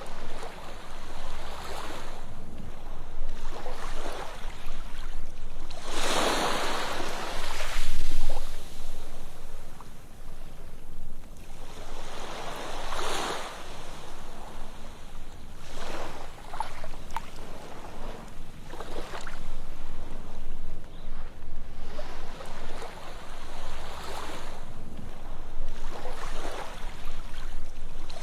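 Ocean surf on a sandy beach: waves break and wash up the sand, the hiss swelling to a peak roughly every six or seven seconds with smaller washes in between.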